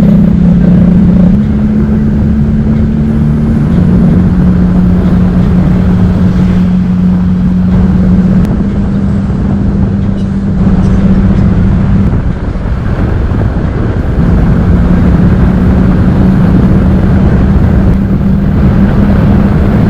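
An engine running steadily with a constant hum that shifts slightly in pitch a few times and drops out for a couple of seconds midway, under a heavy rumbling noise.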